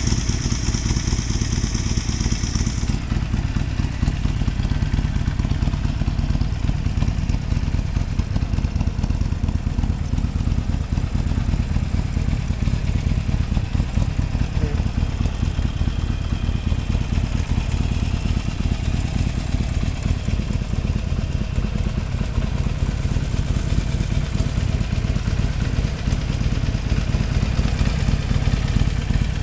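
A 2021 Harley-Davidson Sportster Iron 1200's air-cooled 1200 cc V-twin engine idling steadily through its stock exhaust. A high hiss sounds over it for the first few seconds.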